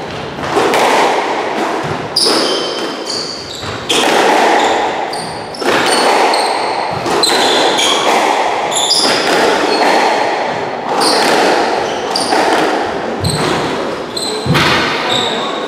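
Squash rally: the ball cracks off racquets and the front wall in sharp, echoing smacks at an irregular pace of about one a second, with short high squeaks of court shoes on the wooden floor between the shots.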